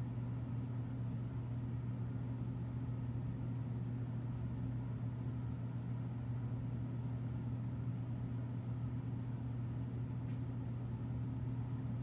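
Steady low-pitched background hum that holds unchanged throughout.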